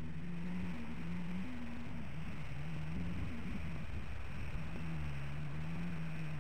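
Low drone of road traffic that holds one pitch for about a second, then steps or slides to another, over a steady hiss; it ends near the close.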